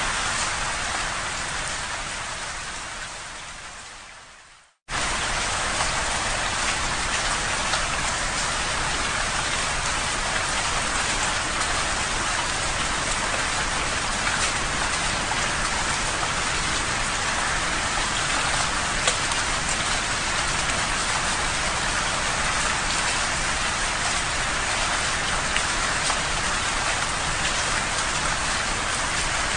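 Steady heavy rain falling on a window pane, with scattered raindrop ticks. The rain fades out over the first few seconds, drops to silence for an instant about five seconds in, then cuts back in abruptly at full level and keeps on steadily.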